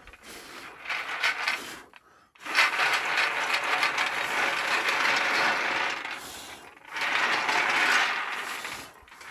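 Roasted hazelnuts rattling and rolling in a shaken oven tray, in two long spells of shaking with brief pauses about two seconds in and again past the middle. The shaking loosens the nuts' papery skins after roasting.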